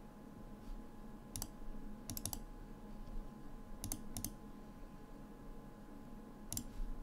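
Computer mouse clicks, a few single and a few in quick pairs, over a faint steady electrical hum.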